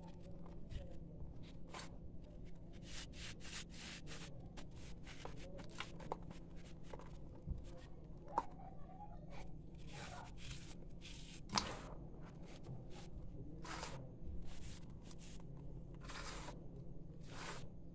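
Hands rubbing, scooping and squeezing dry sifted sand-cement powder, making a run of gritty crunching and rustling strokes at an irregular pace, over a low steady hum.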